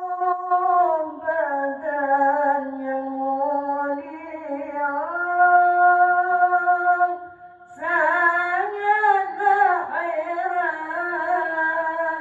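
A young man's solo voice singing a Mawlid praise chant into a microphone, unaccompanied, in long held notes that glide slowly up and down. There is a brief break for breath about seven and a half seconds in.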